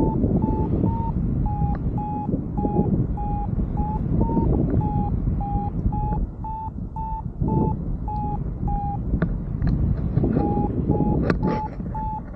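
Paragliding variometer beeping about twice a second, its pitch rising and falling slightly, which signals that the glider is climbing in lift; the beeps stop for a moment about nine seconds in, then start again. Wind buffets the microphone throughout, with a few sharp clicks near the end.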